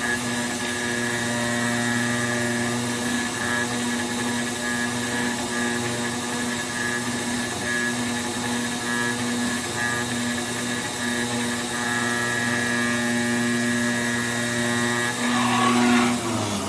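CNC cutting table's router spindle running at speed with a steady whine as it mills E-flute corrugated board. Shortly before the end the head lifts and the spindle winds down, its pitch falling away.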